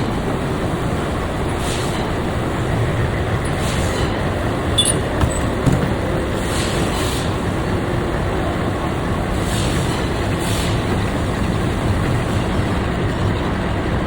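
Metalworking machine running steadily while cutting keyways, a constant mechanical noise with faint hissing swells every few seconds. A few brief metallic clinks come about five seconds in.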